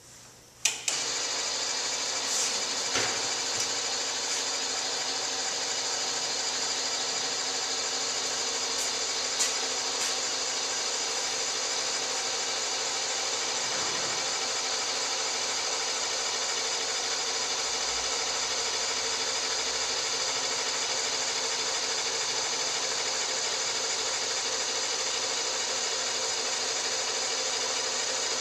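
Electric drive of a motorized window mockup starting with a clunk under a second in, then running with a steady whir as the wood-panelled sash lowers in its steel frame, with a few clicks in the first several seconds.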